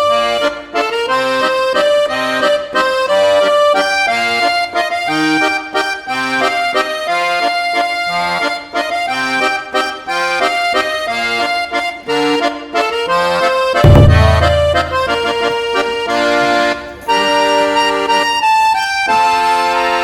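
Background music led by an accordion playing a bouncy melody of held notes. About fourteen seconds in, a deep boom rings out over the music for a second or so.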